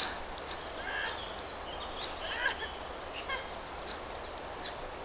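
Birds chirping: runs of short, quickly falling high chirps, several in a row near the start and again near the end, over a faint steady hiss.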